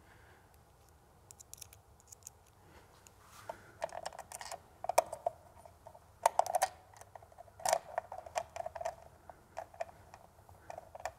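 Small Phillips screwdriver driving a screw into the anchor-light mount, giving irregular light clicks and ticks as the screw turns. The clicks come in quick clusters.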